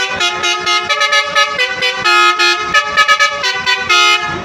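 Indonesian bus 'telolet' musical horn playing a loud, fast tune, its notes jumping in pitch every quarter to half second with hardly a break.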